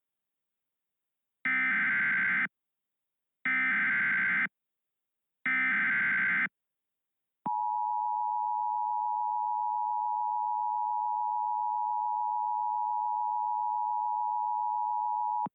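Emergency Alert System header for a flash flood warning: three bursts of SAME digital data screech, each about a second long and two seconds apart, then the two-tone EAS attention signal (853 and 960 Hz together) holds steady for about eight seconds and cuts off abruptly.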